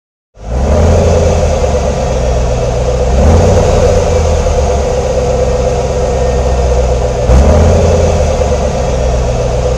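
Large truck engine running loud and steady, starting about a third of a second in and swelling in revs twice, about three seconds in and again about seven seconds in.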